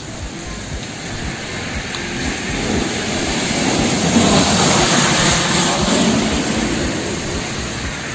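Heavy rain pouring onto a wet road, a steady hiss of falling water. A low rumble swells up a few seconds in, peaks in the middle, and fades away.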